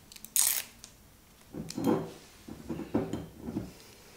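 Hands putting an embossed label on an amber glass spray bottle: a short, sharp peeling sound about half a second in, then a few short rubbing strokes as the label is pressed onto the glass.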